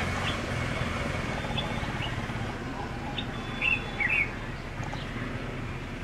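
Birds chirping: a few short high notes, then a cluster of quick chirps about three and a half to four seconds in, over a steady low background rumble.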